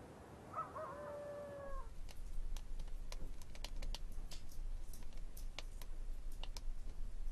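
A single long animal call with a short curling start and then a held tone, about a second long. From about two seconds in, a wood fire crackles in a metal stove: irregular sharp pops and clicks over a low hum.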